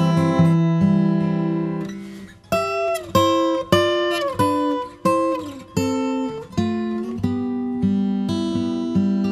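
Acoustic guitar music: picked notes, a brief lull about two seconds in, then a run of single chords struck about every two-thirds of a second before the playing flows on.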